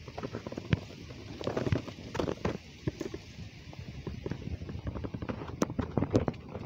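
Handling noise from a phone pushed in among water hyacinth leaves: irregular clicks and knocks with low thumps as the leaves brush and press against it.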